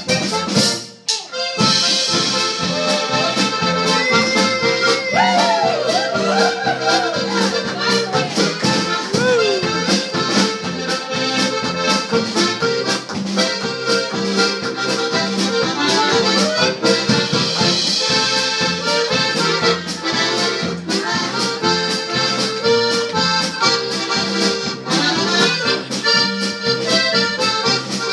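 Button box accordions and a piano accordion playing a lively polka together with a steady beat, with a brief break about a second in as the medley moves into the next tune.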